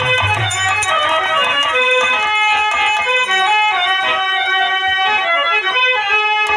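Instrumental interlude introducing the tune of a Bhojpuri birha song: a keyboard plays a melody of held notes, over a low bass note that drops out about a second in.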